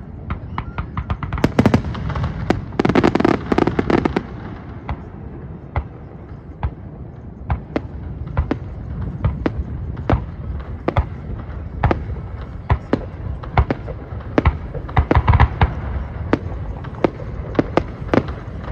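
Fireworks display: aerial shells bursting in a quick string of sharp bangs over a steady low rumble, with dense flurries about two to four seconds in and again around fifteen seconds.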